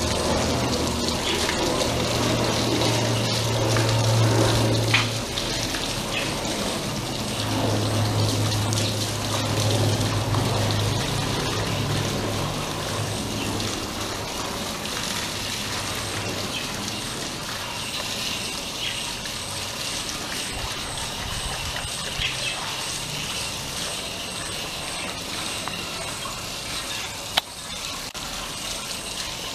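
Water from a hose pouring and splashing over a German Shepherd's wet coat and onto the ground, a steady rush. A low hum runs under it for about the first twelve seconds, and a single sharp click comes near the end.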